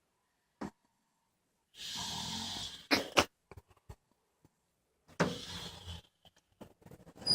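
A person snoring: two long snoring breaths about three seconds apart, the first followed by two short, louder catches, with another snore starting near the end.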